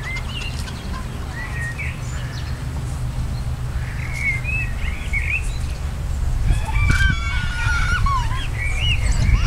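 Birds calling and chirping, short curving calls every second or two that come thicker and louder in the second half, over a steady low rumble of wind on the microphone.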